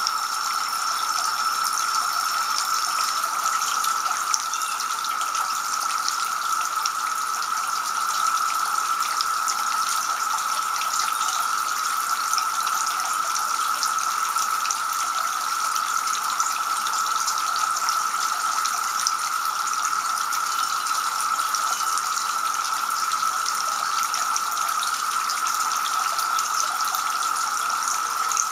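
Two-tier garden fountain running steadily, water splashing from the upper bowl into the lower basin.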